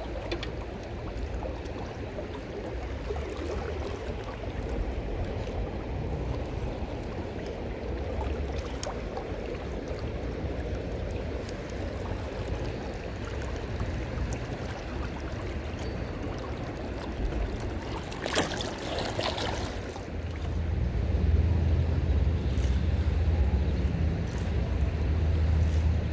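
Steady rush of a shallow river flowing over stones, with wind rumbling on the microphone that grows louder over the last few seconds. A short burst of clicks about two-thirds of the way through.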